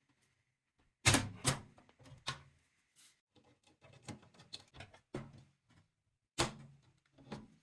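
Irregular clicks, taps and knocks of computer parts being handled and fitted, with a few louder knocks among many small ticks.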